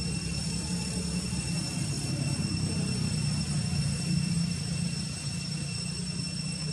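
Steady low engine rumble, swelling slightly in the middle, with faint steady high-pitched tones above it.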